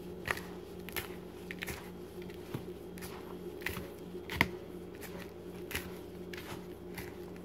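A hand stirring and rubbing a dry flour mixture in a plastic bowl: soft, irregular rustles and scrapes about once a second, with one sharper tap a little past the middle, over a steady low background hum.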